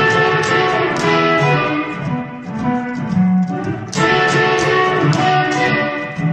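Electric guitar being played: chords and single notes, with a loud chord struck at the start and another about four seconds in.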